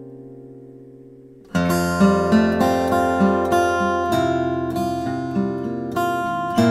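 Acoustic guitar background music: a held chord dies away, then about a second and a half in a louder picked passage starts, notes plucked in a steady rhythm.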